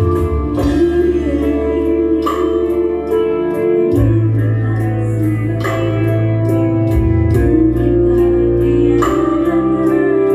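Instrumental music played on an electronic arranger keyboard: sustained organ-like chords over a bass line, with a steady drum beat.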